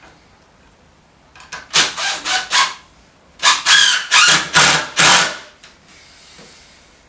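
Cordless impact driver driving screws into timber, in two runs of short bursts, the second longer than the first.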